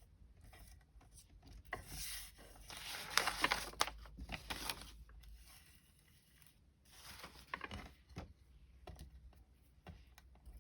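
Paper rustling and light clicks as small die-cut cardstock pieces are handled and shifted, in two spells: a longer one about two seconds in and a short one near the end.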